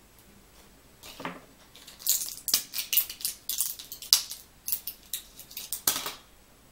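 A quick, irregular run of sharp clicks and rattles as small makeup items and containers are handled and set down on a tabletop, starting about a second in.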